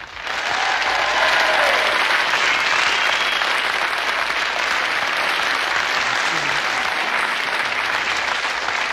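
Live audience applauding steadily, with a few faint whistles or shouts in it. It cuts off abruptly right at the end.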